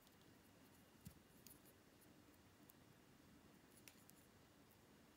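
Near silence: faint room tone with a few soft ticks, about one and a half and four seconds in.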